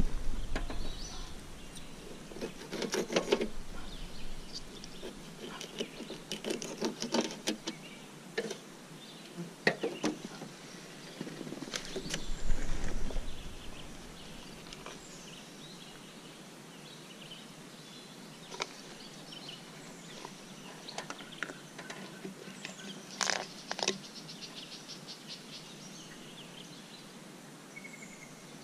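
Scattered clicks, knocks and rustles of hands working with bait, tackle and gear in a metal jon boat, including a louder low thud about twelve seconds in. Faint birds and insects chirp in the background throughout.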